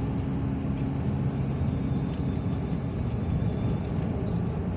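Steady low road and engine rumble heard from inside a moving car, with a faint hum that fades out about two seconds in.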